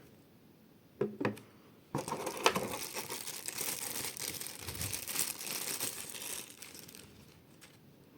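Two short knocks about a second in, then packaging being handled and crinkling for about five seconds, fading out near the end.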